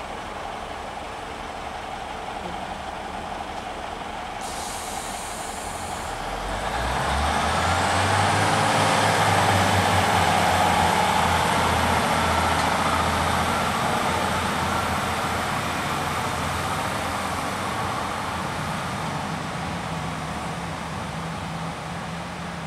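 Class 150 Sprinter diesel multiple unit pulling away. A hiss comes in about four seconds in. About six seconds in the diesel engines pick up, with a low engine note and a rising whine as the train gathers speed, then slowly fade as it draws off.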